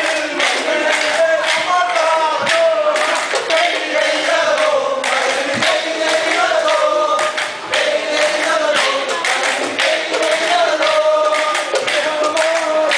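A group of men singing a Kolkali song together, over repeated sharp clacks of wooden sticks struck against each other as the dancers keep time.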